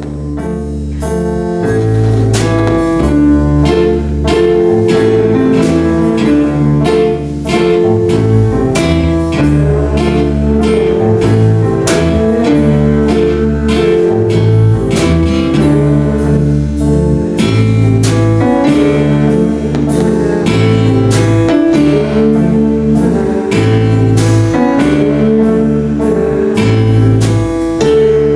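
Live band playing a rock piece: guitar over a drum kit keeping a steady beat, the sound swelling in over the first couple of seconds.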